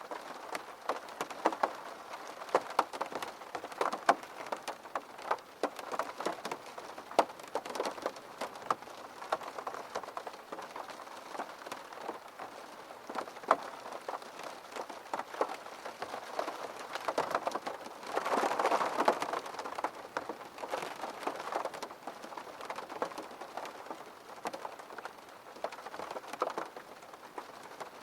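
Steady rain with many separate drops striking a hard surface, and a brief louder swell of rain noise about two-thirds of the way through.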